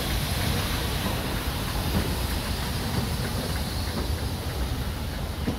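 Stanier Black Five steam locomotive moving off slowly from a platform, with a steady low rumble and steam hiss and a few faint knocks.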